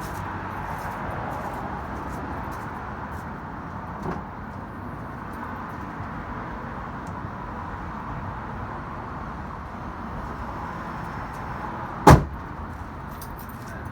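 A 2008 VW Golf City's 2.0-litre four-cylinder running steadily through its straight-piped 2.5-inch exhaust with no muffler. A car door shuts with a single loud slam about 12 seconds in.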